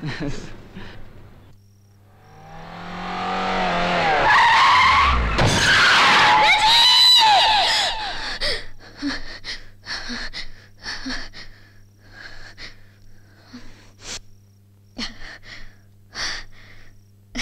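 A dramatic film sound effect: a loud swelling whoosh laced with sliding, screeching tones, building for about six seconds and cutting off. It is followed by a run of sharp, irregular clicks over a steady low hum.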